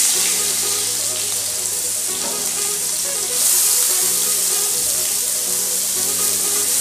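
Sliced onions frying in hot oil in a kadai: a loud, steady sizzle that grows louder about three and a half seconds in.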